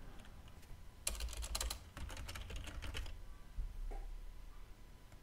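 Typing on a computer keyboard: a quick run of keystrokes about a second in, then scattered taps that stop about three seconds in.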